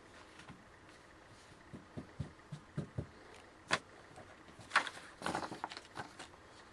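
Trading cards being handled: faint scattered taps and rustles, with a sharp click almost four seconds in and a short run of rustling about a second later.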